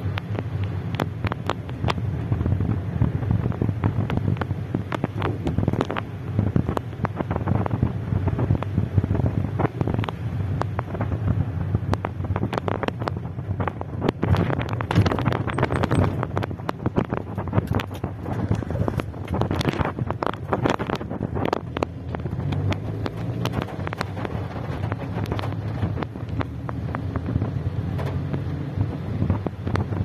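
Rain falling on a car's roof and windscreen, heard from inside the cabin as a dense patter of rapid drop ticks. Underneath is the steady low rumble of the car driving on a wet road. The rain gets heavier for a few seconds about halfway through and again some seconds later.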